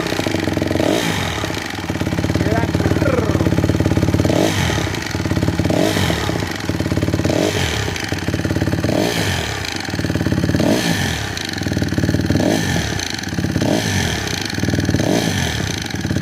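2007 Honda CRF150R's single-cylinder four-stroke engine running, with repeated short throttle blips that rise and fall every second or two, and a noise from the top end that the owner places around the valves.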